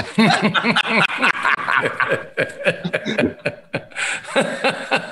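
Three men laughing together, a run of rapid pulsing laughs that carries through the whole stretch.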